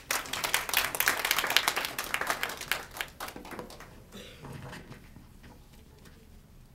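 A small audience clapping, strongest in the first couple of seconds and dying away after about three and a half seconds.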